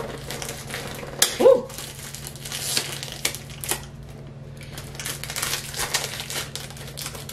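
Packaging of a white cardboard product box crinkling and rustling as it is handled and picked at with the fingernails, in a run of small irregular crackles.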